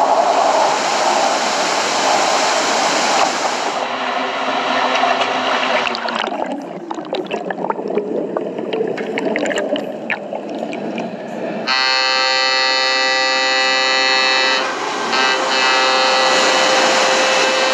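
Seawater rushing and churning over a ship's open stern well deck, a dense loud wash of spray. About six seconds in it turns to muffled underwater crackling. From about twelve seconds a steady sound made of many held tones joins over the water noise and dips briefly about three seconds later.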